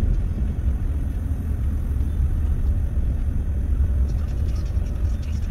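Steady low rumble of a car driving, with engine and road noise heard from inside the cabin.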